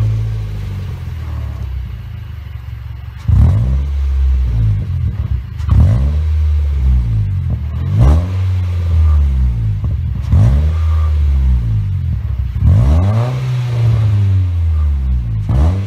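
A 2015 Nissan Versa's 1.6-litre four-cylinder engine sounds through an aftermarket DC Sports muffler. It idles for about three seconds, then is revved in short blips about every two seconds, each rising quickly and dropping back to idle.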